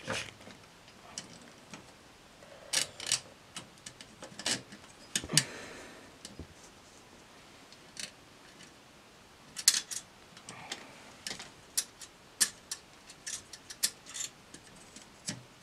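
Irregular sharp clicks and taps of metal VEX robot parts and small hardware knocking together as they are handled and fitted by hand.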